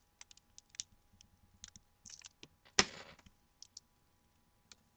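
Scattered small clicks and crackles of adhesive tape being peeled off a laptop's screen cable, with one louder, longer crackle about three seconds in.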